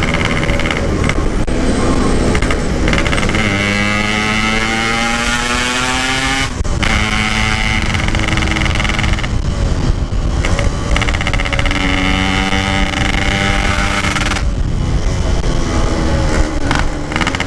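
Yamaha RX-King's 135 cc two-stroke single-cylinder engine, fitted with a standard-look aftermarket exhaust, pulling hard on the road with its pitch climbing under throttle. Three times the pitch breaks off and drops as the throttle shuts, then climbs again.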